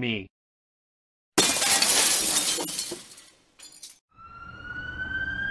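Window glass shattering in one loud crash that fades over about two seconds, followed by a smaller crash. A siren then starts up about four seconds in, a single wail rising slowly in pitch.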